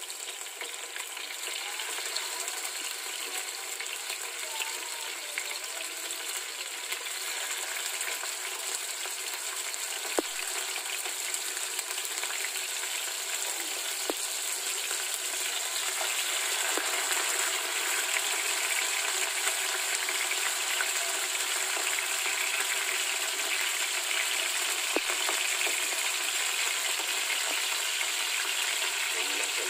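Fresh tuna steaks sizzling in hot oil in a nonstick frying pan, the sizzle growing louder as more pieces are laid in. A few sharp clicks sound over it.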